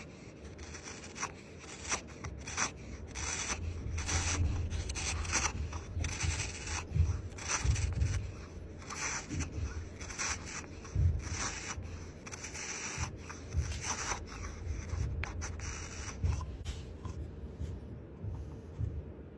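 Hand rubbing or sanding strokes on wood, coming in a quick, uneven series with a dull low knock in many of them.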